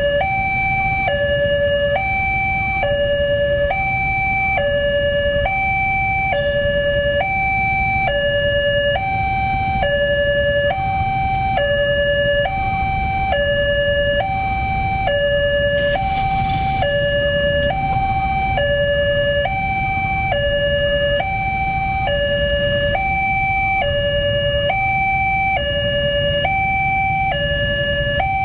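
Electronic two-tone warning alarm of a railway level crossing, alternating between a lower and a higher tone, each held about a second, with a low rumble of waiting road traffic beneath.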